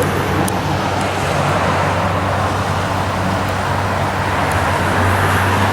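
Light propeller aircraft's engine droning steadily as it circles overhead.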